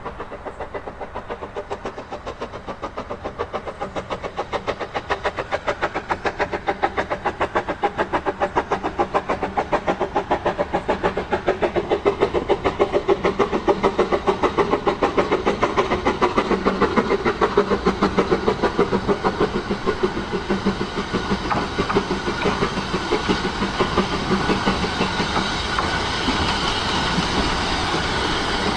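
Narrow-gauge Hunslet saddle-tank steam locomotive working a passenger train, its exhaust beating in a steady rhythm that grows louder as it approaches. Near the end the locomotive and coaches pass close by, adding wheel and rail noise.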